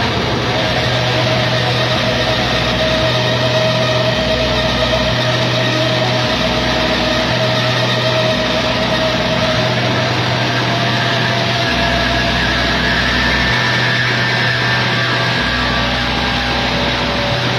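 Loud, dense wall of distorted amplified rock-band noise, with a steady held feedback-like tone and low bass notes that cut in and out every second or two.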